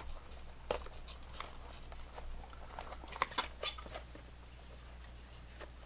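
Packaging being handled as a webcam is taken out of its box: scattered light clicks, taps and soft rustles, busiest in the first few seconds, over a steady low hum.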